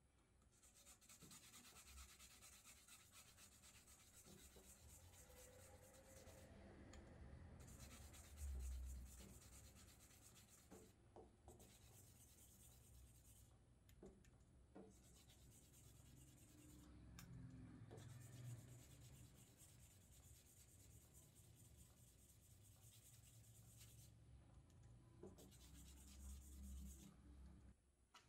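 Hand polishing of an usuba knife's blade face: an abrasive rubbed by the fingertips along the clamped steel in quick scratchy strokes, coming in runs with brief pauses. There is a dull bump about eight seconds in.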